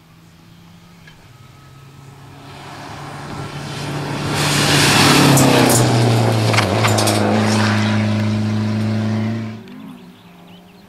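Renault 5 rally car approaching at full throttle, its engine growing louder and passing close by at high revs with several sharp cracks. The engine note drops in pitch as it goes past, then cuts off abruptly about a second before the end.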